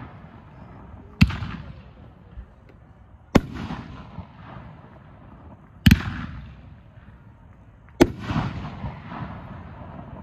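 Neon Rings consumer multi-shot aerial fireworks cake firing: four sharp bangs about two seconds apart, each followed by a short fading tail.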